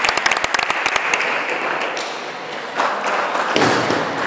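Spectators clapping in a large gym hall, dense at first and dying away after about a second, then an even hall murmur with a couple of knocks near the end from the table tennis rally.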